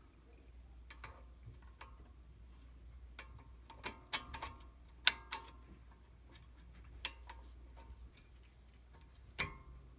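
Scattered sharp metallic clicks and taps, about seven, irregularly spaced, the loudest about halfway, some with a short ring: metal parts knocking together as the last retaining pin is fitted into a front brake caliper.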